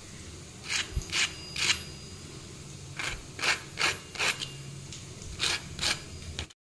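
A metal fork's tines scraping and tapping across the crisp, golden fried crust of aloo tikki (potato patties), giving about ten short, sharp, crunchy scratches in irregular clusters. The sound is meant to show how crispy the patties turned out.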